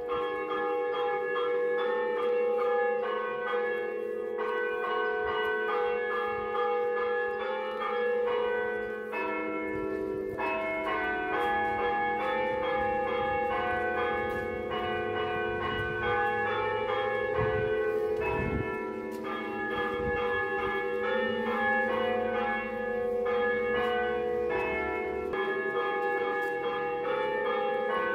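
Church bells ringing, many notes struck in quick succession and overlapping.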